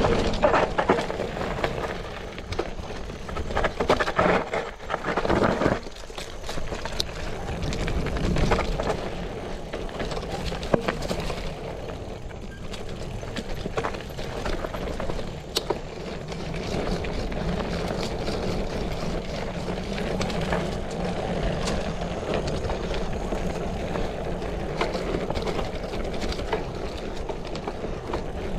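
Bicycle ridden down a dirt trail: steady tyre noise over the ground with frequent rattles and knocks from the bike, loudest in a few rough stretches during the first several seconds.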